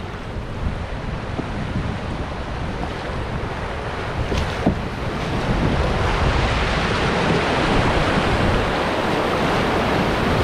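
Rushing whitewater of river rapids, growing louder about halfway through as the canoe runs down into them, with wind buffeting the microphone. A single knock comes a little before the middle.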